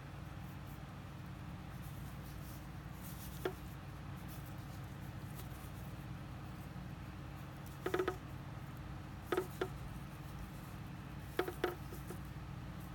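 A few scattered short clicks and ticks from fishing line and a small hook being handled while a dropshot knot is tied, over a steady low hum.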